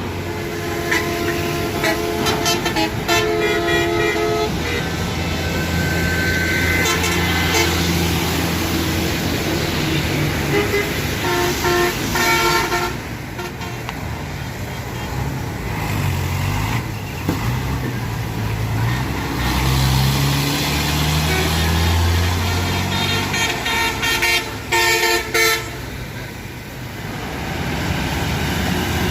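Bus engine running with its pitch rising and falling as it speeds up and slows, and vehicle horns honking in short repeated blasts three times: near the start, about twelve seconds in, and near the end.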